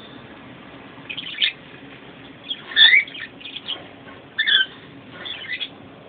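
Caged pet birds chirping and calling in about five short bursts, with pitch rising and falling; the loudest call is a rising one about three seconds in.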